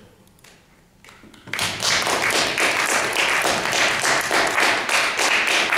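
Audience clapping, starting abruptly about a second and a half in after a brief hush and keeping up as a loud, dense patter of many hands.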